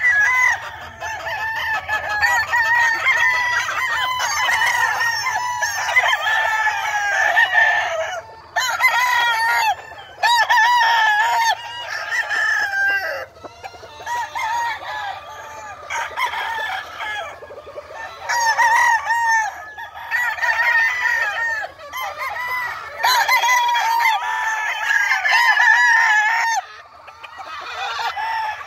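Several gamefowl roosters crowing one after another, their crows often overlapping, with a few short gaps between bouts.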